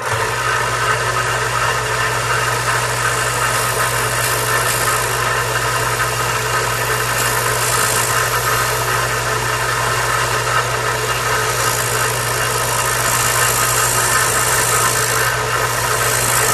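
Electric belt sander starting up and running steadily with a motor hum, its belt sanding a small divot into a puppet-control toggle, with a rougher, hissier sound a few times during the cut.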